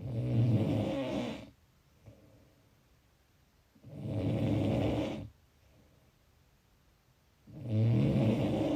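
Snoring: three long snores, each about a second and a half, coming roughly every four seconds, with faint breaths in the gaps between them.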